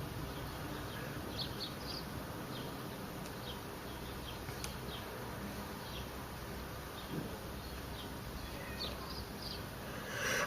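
Low steady background with faint, short, high chirps scattered through it. In the last half second a person's sharp breath builds into the start of a sneeze.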